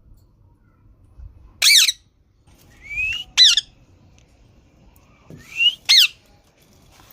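Green parrot giving three loud, harsh squawks a couple of seconds apart. The last two are each led by a short rising note.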